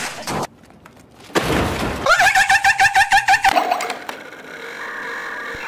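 Computer equipment smashed in a crash, followed by a wavering, pulsing wail, about one to three and a half seconds in. A faint steady hum follows.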